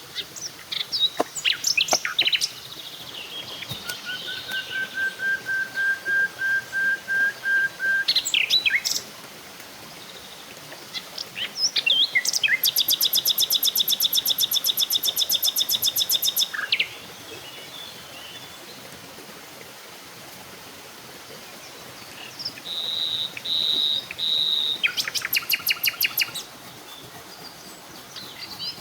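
Several forest birds calling. One repeats a single even note about twice a second for a few seconds, and fast buzzy trills come in briefly twice.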